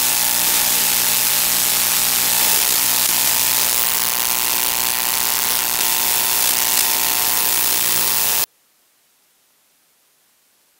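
Loud steady hiss with a faint electrical hum underneath, the noise carried on an analog FPV video link's audio channel while the drone sits disarmed. It cuts off abruptly about eight and a half seconds in, leaving near silence.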